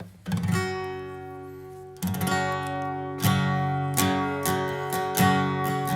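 Acoustic guitar strumming chords at a slow pace, each chord left to ring and fade before the next, with the first one ringing out for nearly two seconds.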